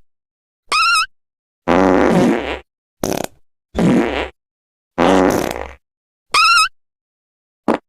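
A string of fart sound effects: about seven separate farts of different lengths with dead silence between them, some low and raspy, others short, high and squeaky, rising in pitch.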